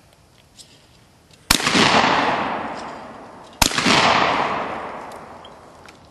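Two shotgun shots about two seconds apart, each trailing off in a long echo.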